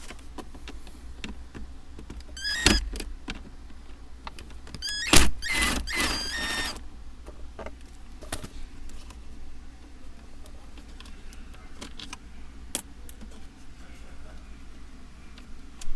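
Cordless power driver whining in two short runs, about two and a half seconds in and again from about five to seven seconds, as it backs out T25 Torx screws, its pitch stepping up as it spins. Small clicks and clinks of the tool and screws come in between.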